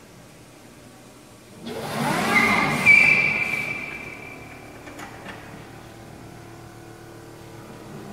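Rear tires of an electric-converted 1999 Mazda Miata spinning on smooth shop concrete. A sudden burst of high tire squeal comes about a second and a half in, is loudest near three seconds, and fades over the next second, with a whine rising and falling beneath it.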